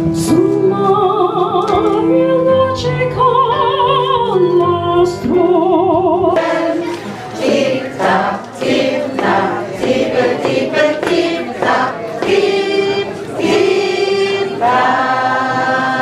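A woman singing with a wide vibrato over held keyboard chords; about six seconds in, the sound changes to a group of children singing together with accompaniment.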